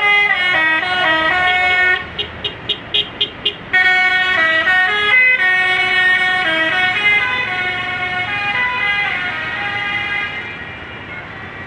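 Bus 'telolet' musical air horn playing a tune. It sounds stepped notes for about two seconds, then a string of short quick toots, then a longer run of changing notes that fades near the end.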